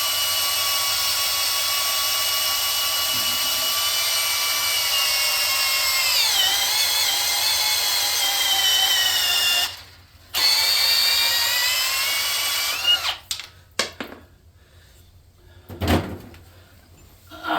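Cordless drill boring into a Chevy LS aluminium engine block at a stripped head bolt hole: a steady motor whine that sags in pitch about six seconds in as the bit drags, stops briefly near ten seconds, runs again and stops about thirteen seconds in, followed by a few light knocks. The drill is labouring more than normal, which the machinist suspects is because the block has been hot and the aluminium is soft and gummy.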